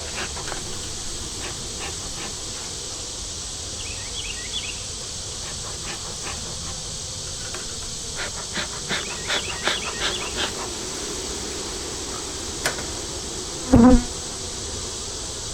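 Honey bees buzzing steadily around an opened hive, stirred up and defensive: 'not happy bees'. Scattered clicks and knocks come through the buzzing, thickest over a couple of seconds past the middle, with one short loud thump near the end.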